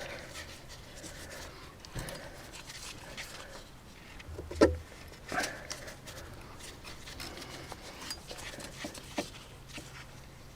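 Cup-type oil filter canister remover working loose the spin-on oil filter of a Land Rover TD5 diesel, with scattered metallic clicks, rubbing and knocks, one loud knock with a thud about halfway through, and heavy breathing from the effort.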